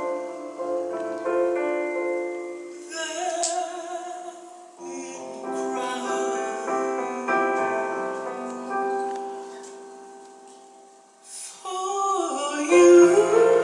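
Live piano playing slow, held chords as a ballad's introduction, with a singer's voice coming in with vibrato near the end.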